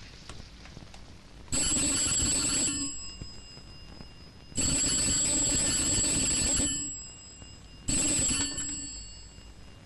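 Telephone bell ringing three times, the third ring cut short as the phone is answered.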